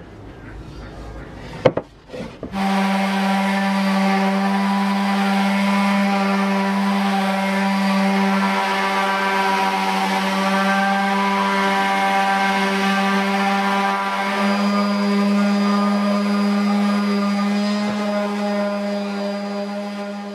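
A few knocks, then an electric random orbital sander switches on about two and a half seconds in and runs steadily on a wooden speaker box, a constant motor hum over the rasp of sandpaper on wood.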